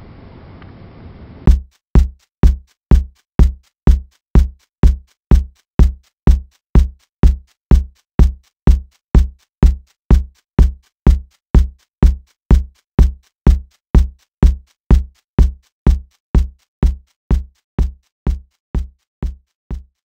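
Electronic kick drum pounding out a steady beat, a little over two beats a second. It starts about a second and a half in after faint hiss and fades out near the end.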